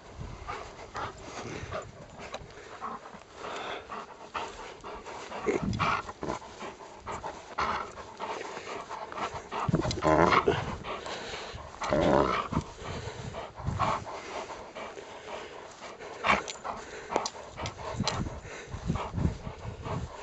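A dog panting hard while it tugs and wrestles over a toy in play, with a few louder spells of dog noise along the way.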